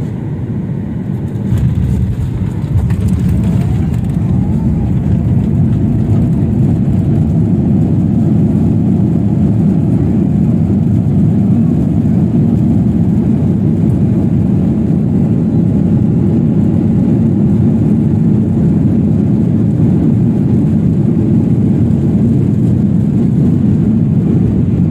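Loud, steady rumble inside a jet airliner's cabin as it rolls down the runway after touchdown, engine and rolling noise together, growing louder about a second and a half in.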